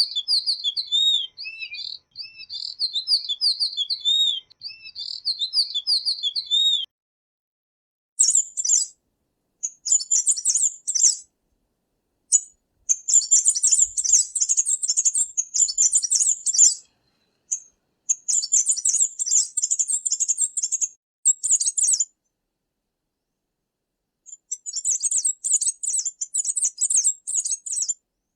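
Tanager song: a run of repeated, warbling phrases, then after a short silence about 7 seconds in, a different, higher-pitched song in quick bursts separated by brief pauses.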